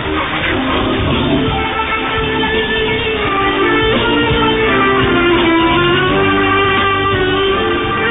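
Guitar music on a shortwave radio broadcast, with held and gliding notes over a steady bass. It comes through the receiver's narrow AM audio, with no treble.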